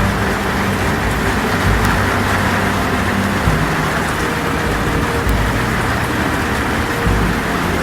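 Heavy rain falling steadily on a metal roof, a dense, unbroken hiss. Under it a low, held drone shifts pitch every few seconds.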